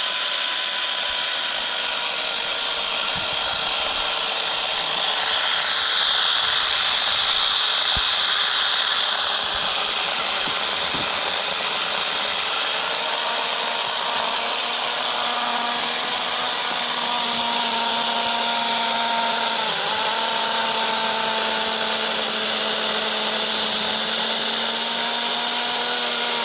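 Harbor Freight LYNXX 40-volt cordless chainsaw with a 14-inch bar running steadily, its electric motor whining as the chain cuts through an ash log. The cutting noise is loudest from about five to nine seconds in.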